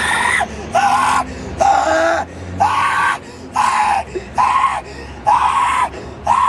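A teenage boy screaming over and over in mock grief: about eight short, loud cries of roughly half a second each, with brief gaps between them.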